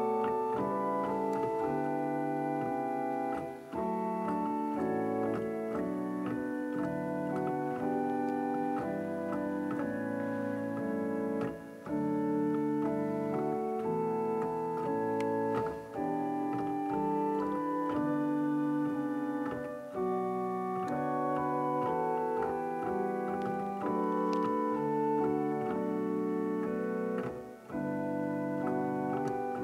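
Church organ playing slow sustained chords, with short breaks between phrases.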